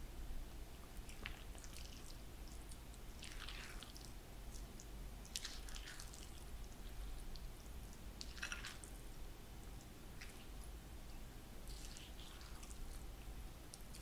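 Faint wet squishing and scraping of a silicone spatula folding a dry cocoa-and-flour mix into wet ingredients in a glass bowl, a few soft strokes a couple of seconds apart, over a low steady hum.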